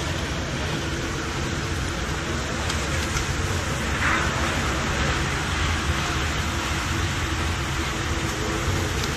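Violent windstorm with heavy rain: a steady, dense rush of wind and rain with a deep low rumble, briefly louder about four seconds in.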